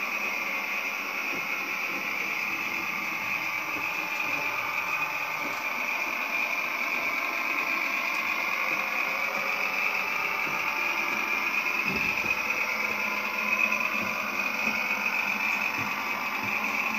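Märklin HO-scale model of the class 724 (ex-VT 95.9) railbus running along the track, its onboard digital sound decoder playing a steady diesel railcar engine sound, mixed with the model's own motor and wheel noise.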